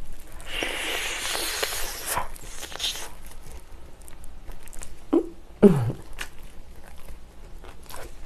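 Close-miked eating of a sauced chicken wing: biting, tearing the meat off the bone and chewing, with many small wet mouth clicks, loudest in the first three seconds. About five seconds in there are two short falling hums from the eater; the second is the loudest sound.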